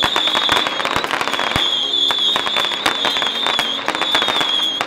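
Firecrackers crackling in rapid, irregular pops, with a few heavier bangs among them, over a steady high wavering tone.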